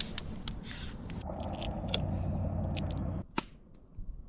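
Scattered sharp clicks and scraping over a steady low rumble as corn on the cob is put onto a campfire. The sound drops off abruptly a little after three seconds, followed by a single click.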